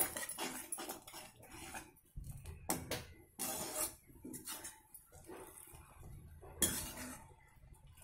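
A metal ladle scraping and knocking against a metal kadai while it stirs boiling jaggery syrup, in uneven strokes with a few louder knocks.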